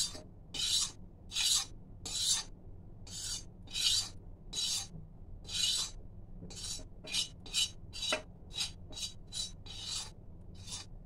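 Metal spoon scraping the inside of a metal kadhai, clearing out dry roasted gram flour: a run of short, dry rasping strokes, about one a second at first and quicker, about three a second, in the second half.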